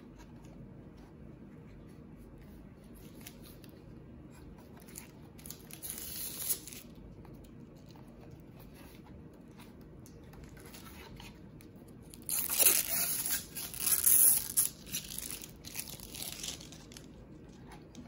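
Clear plastic film being torn and pulled off a robot vacuum's charging base, crinkling as it comes away. A short spell comes about six seconds in, and a longer, louder one from about twelve seconds.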